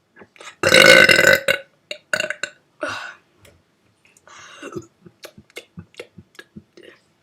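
A person burping on purpose: one long, loud burp about a second in, then two shorter burps, followed by faint short clicks.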